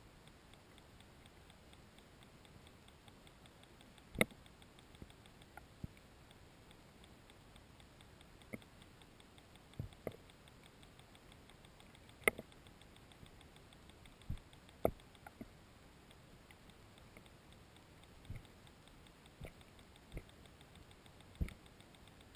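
Underwater sound picked up by a GoPro in its waterproof housing: a quiet hiss with about fifteen scattered knocks and clicks, the loudest a few seconds in and near the middle, over a faint fast ticking.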